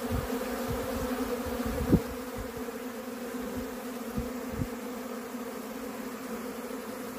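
Many honeybees buzzing around the hives in a steady, even hum, the sound of an apiary on spring orientation flights. A few low thumps are heard, the strongest about two seconds in.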